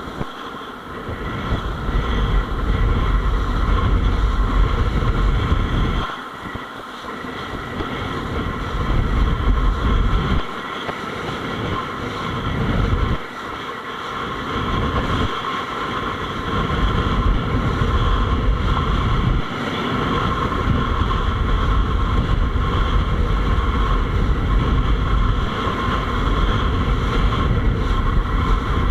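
Wind buffeting a kitesurfer's action-camera microphone in a heavy low rumble that eases off briefly several times, over the steady rush of the kiteboard planing across choppy water.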